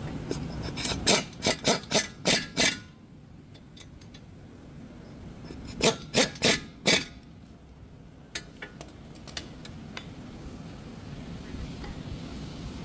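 Short, sharp strokes of tool work on car brake parts: a run of five about a second in, then four more around six seconds in, with a few faint ticks after.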